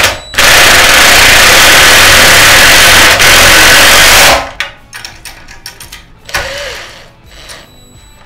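Cordless impact driver hammering a 7/16 socket to tighten a nut and bolt, loud and steady for about four seconds before it stops. Light metallic clicks and rattles of the tools follow.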